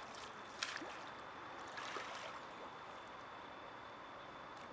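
Faint water sounds of a stand-up paddle blade dipping and pulling through calm lake water, with two soft splashes about half a second and two seconds in.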